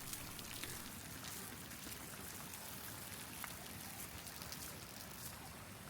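Faint, steady pattering of water, with scattered small drips.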